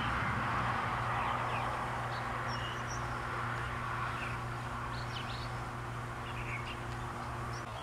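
Outdoor birds chirping in short, scattered calls over a steady low mechanical hum and a background hiss.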